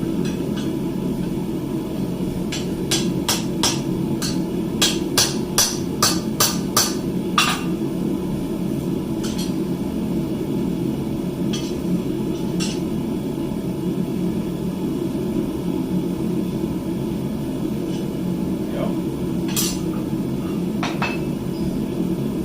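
Blacksmith's hammer striking steel on an anvil to straighten the bar: a quick run of about a dozen blows, roughly three a second, a few seconds in, then scattered single blows. A steady low hum runs underneath.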